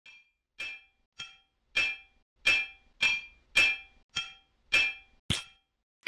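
Hammer blows ringing on an anvil: about ten strikes at a steady pace, a little under two a second, each one ringing out briefly.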